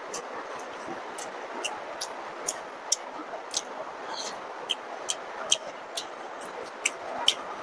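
Close-up wet mouth clicks and lip smacks of someone chewing soft food, about a dozen sharp irregular clicks, over a steady hiss of heavy rain.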